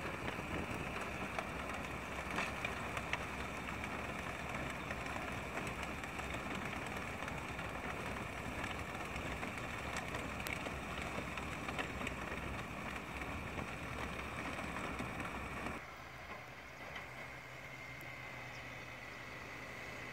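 A tractor pulling a manure spreader across a field, its engine and spreading beaters giving a steady running noise with a few faint clicks. About sixteen seconds in the sound cuts to a quieter, steady low engine hum from a Case IH Puma tractor standing still.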